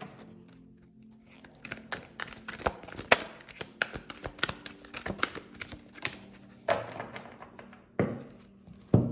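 A deck of tarot cards being shuffled and handled by hand: irregular papery slaps and clicks of cards against each other, with a few louder taps near the end.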